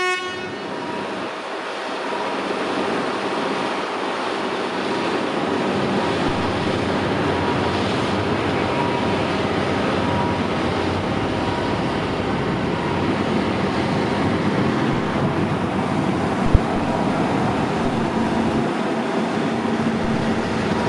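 Diesel train running by with a continuous rumble of engine and wheels, growing louder over the first few seconds and then holding steady. A single sharp knock about sixteen seconds in.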